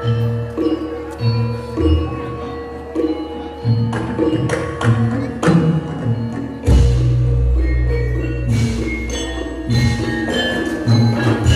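Javanese gamelan music for a jathilan dance: ringing bronze metallophone and gong-chime notes over a steady beat of low strokes, with a deep gong stroke a little past the middle.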